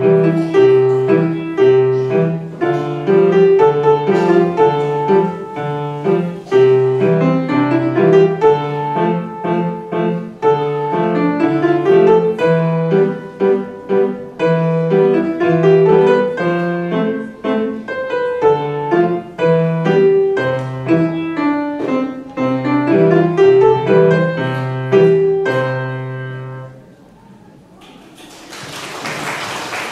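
Solo acoustic grand piano playing a piece over a repeating bass line; the last notes die away about 27 seconds in. Audience applause starts near the end.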